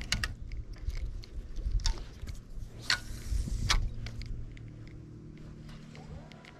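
Spinning rod and reel being handled and cast: a few sharp clicks and a brief hiss, over a low steady hum and rumble.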